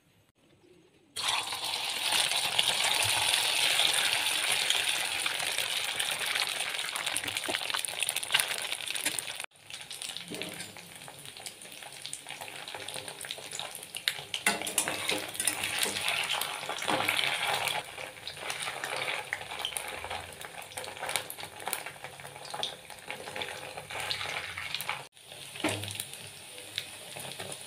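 Chhana (cottage-cheese) balls frying in hot oil in a kadai. A loud sizzle starts suddenly about a second in as the balls go into the oil. After about nine seconds it drops to a softer, steady sizzle, with the clicks and scrapes of a spatula turning the balls.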